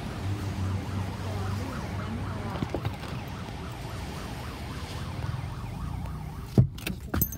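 Ambulance siren sounding its 'Scorpion' tone: a fast-repeating pattern of short warbling chirps over a steady low rumble. Two sharp knocks near the end are the loudest sounds.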